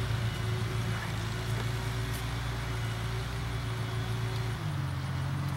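1948 Farmall Cub tractor's four-cylinder flathead engine running steadily, its note shifting near the end.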